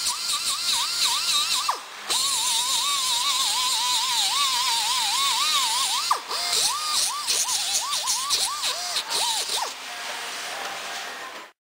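Background music with a wavering lead line that bends up and down in pitch over a bright hiss, cutting off suddenly near the end.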